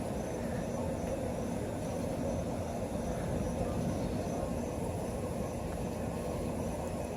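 Steady low outdoor rumble with no distinct events, with a faint high-pitched insect chirp repeating about two to three times a second that fades out partway through.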